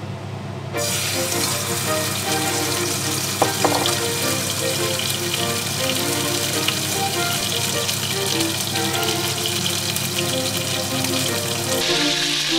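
Kangaroo fillet sizzling in a very hot non-stick frying pan, starting about a second in as the meat goes into the pan, with a steady crackling hiss that gets brighter near the end. Light background music plays over it.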